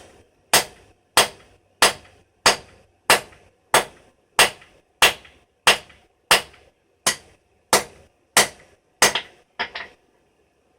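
Blacksmith's hand hammer striking a steel bar on an anvil, drawing old round stock out toward square: a steady run of about sixteen blows, roughly one and a half a second, each with a short ring. It ends in a quick double blow, then stops.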